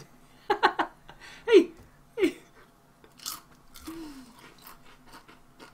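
People biting into and chewing crunchy Covered Bridge ketchup potato chips: a quick cluster of crisp crunches about half a second in, then softer scattered crackling of chewing. Short hums of voice come in between, the loudest about a second and a half in.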